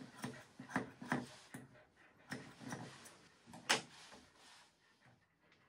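Grooming scissors snipping the fur on a dog's foot: a run of short, sharp snips at an uneven pace, with one louder clack just before four seconds in.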